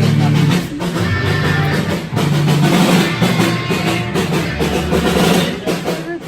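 Background music with drums and a heavy bass beat.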